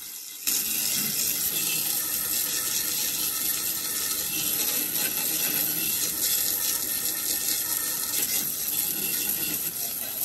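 Garden hose spray nozzle shooting a steady jet of water onto mud-caked shovel blades and wet ground, a continuous hiss and spatter that starts abruptly about half a second in.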